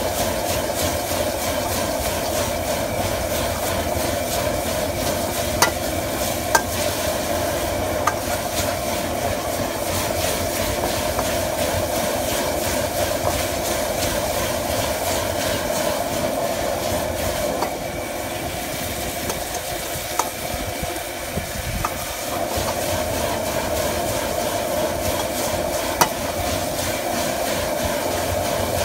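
High-power outdoor gas wok burner running steadily under a carbon steel wok, with food sizzling and stir-frying as it is tossed. A handful of sharp clicks from the metal ladle striking the wok.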